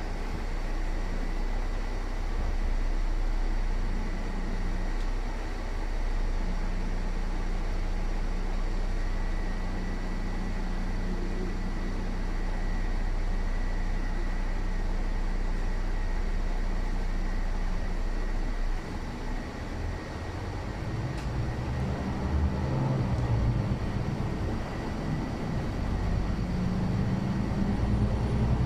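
Inside a city bus on the move: a steady engine hum and road noise, which turns into a rougher, louder rumble about 19 seconds in.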